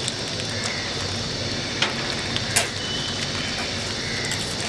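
Hot oil sizzling steadily with small crackles, and two sharp pops about two seconds in.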